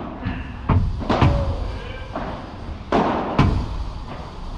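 Padel rally: sharp knocks of rackets striking the ball and the ball bouncing off the court and walls, about six in all. The loudest come in two quick pairs, about a second in and about three seconds in.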